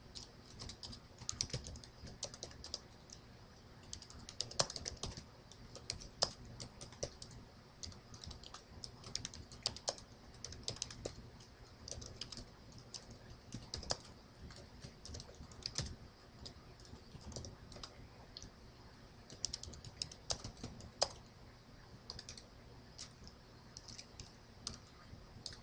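Typing on a computer keyboard: faint, quick, irregular keystrokes in short runs with brief pauses between them.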